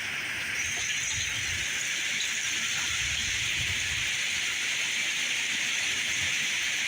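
Heavy storm rain falling steadily, a constant hiss, with some low rumbling that stops about four seconds in.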